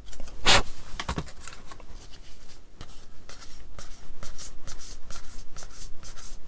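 Hand sanding a small plastic model kit part: a quick series of dry, scratchy rubbing strokes, a few a second, with a louder stroke about half a second in.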